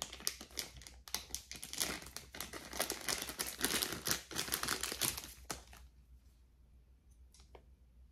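Packaging crinkling and rustling as it is unwrapped by hand, with many sharp crackles, for about five and a half seconds. It then goes quiet apart from a few faint clicks near the end.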